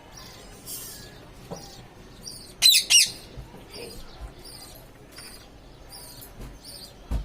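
A parrot gives two loud, arching calls in quick succession, over a background of short high chirps repeating a few times a second. A short thump near the end.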